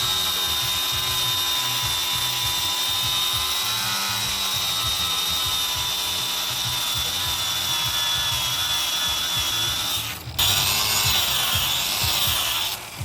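Electric power tool running steadily with a high whine. It cuts out briefly about ten seconds in, then runs again with a wavering pitch.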